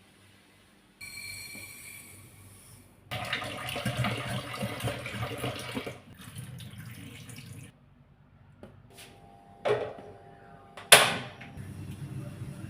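Kitchen tap running water into a sink for a few seconds, in among short bits of kitchen handling noise, with two sharp knocks near the end.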